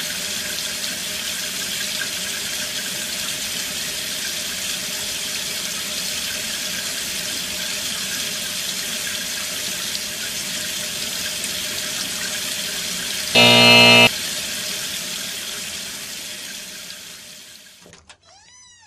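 Steady hiss like running tap water, fading out near the end. About two-thirds of the way through, a short, loud electric buzz like a doorbell cuts in for under a second. Just before the end come a few falling tones.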